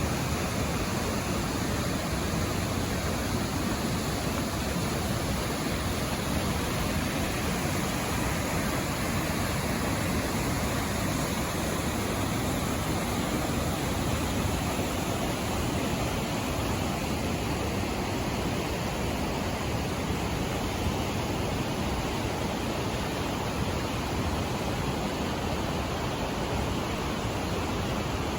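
Merced River's water rushing, a steady, even roar of flowing water.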